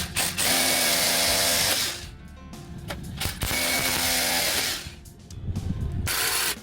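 A power tool running in bursts: two stretches of about two seconds each and a short third one near the end, over background music.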